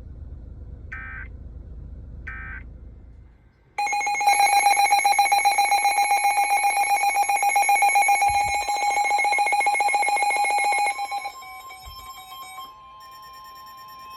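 Emergency Alert System signalling tones. First come three short bursts of digital data tones about a second apart, the end-of-message code closing the previous warning. About four seconds in, the loud two-tone EAS attention signal starts and sounds steadily for about seven seconds, then gives way to a fainter steady tone.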